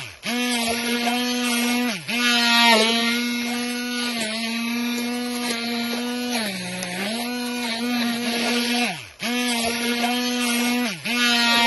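Handheld immersion blender's motor whining as it purées pumpkin soup in a stainless steel pot. Three times its pitch falls away and comes straight back as it is let off and started again, and near the middle it drops lower for a moment.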